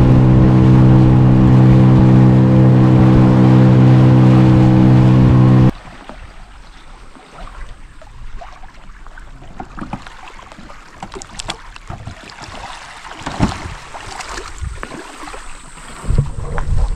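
The tender's outboard motor runs at a steady speed and stops abruptly about six seconds in. After that there is only faint lapping water and a few small splashes in the shallows.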